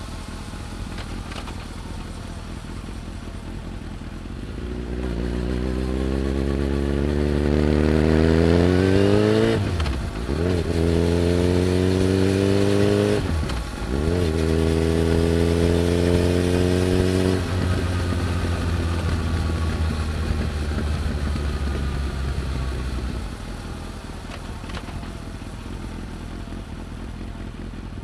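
Suzuki Hayabusa GSX1300R inline-four with a TechSurf carbon muffler. It runs at a low steady cruise, then accelerates about five seconds in, climbing in pitch through two quick gear changes. It holds high for a few seconds, then eases off and settles back to a low cruise. Drive-chain noise is loud under the exhaust.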